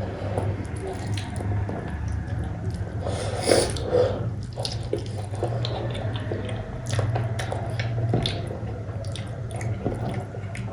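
Close-up eating sounds: wet chewing, lip-smacking and small clicks of a person eating soft cooked goat-head meat, over a steady low hum.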